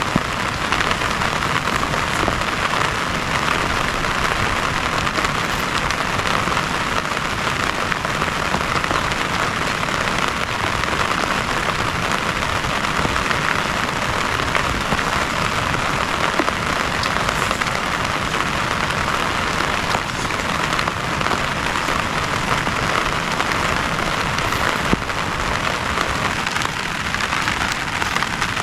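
Heavy rain falling steadily, a dense even hiss with a few sharper drop hits here and there.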